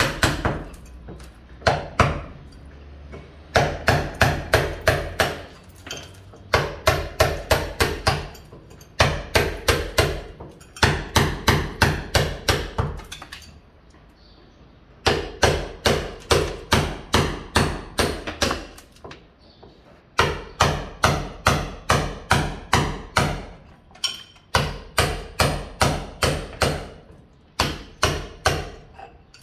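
A mason's hammer striking masonry in quick runs of blows, about four to five a second, each run lasting a few seconds before a short pause.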